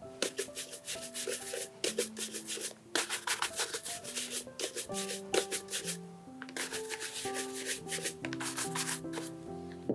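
Brisk back-and-forth strokes of a bristle shoe brush across a leather dress shoe, buffing the polish. The strokes come in fast runs of several a second, broken by short pauses.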